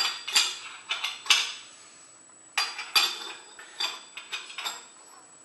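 Metal brake parts clinking and scraping against a bicycle's rear hub as they are handled and threaded on. An uneven string of sharp metallic clinks, the loudest near the start and around three seconds in, growing fainter toward the end.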